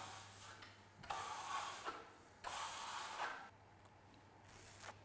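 Plastering trowel sweeping over lime-based marmorino plaster to polish it: a series of hissing scrapes about a second each, the last one fainter. The smooth scraping sound is the sign that the plaster surface has become smooth and is being burnished.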